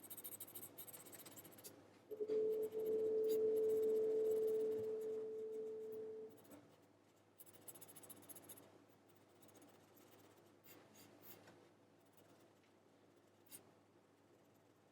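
Scratchy strokes of colouring in on paper. A single steady tone sounds for about four seconds early on, louder than the strokes, then stops.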